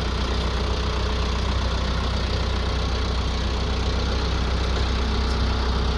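Branson F Series compact tractor's diesel engine idling steadily, freshly started.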